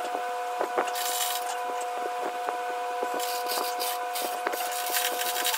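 Hand-chain hoist being worked: the chain rattling and clicking through the hoist in many small irregular clicks and knocks. A steady whine runs underneath and cuts off suddenly at the end.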